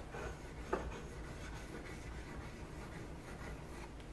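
Knife blade faintly scraping back and forth on a wet medium-grit water stone during sharpening, with one light knock about three-quarters of a second in.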